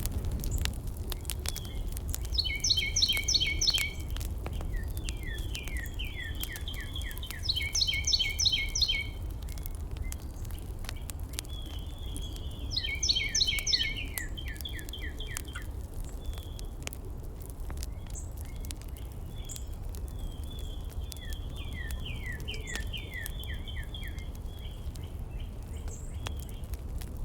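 Songbirds singing: three bursts of rapid trilled notes, each lasting about a second and a half, with runs of quick downward-slurred notes between them, over a steady low rumble and scattered faint crackles.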